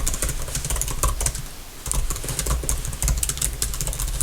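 Typing on a computer keyboard: a quick run of light key taps, with a short pause a little before halfway.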